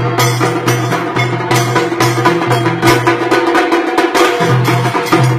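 Trinidadian tassa drum ensemble playing a fast rhythm: a dense run of sharp stick strikes over a steady booming bass-drum beat. The bass beat drops out briefly about four seconds in, then comes back.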